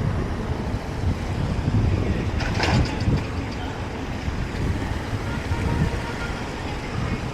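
Wind buffeting the microphone over the steady low rumble of a boat moving on the water, with a short crackling burst about two and a half seconds in.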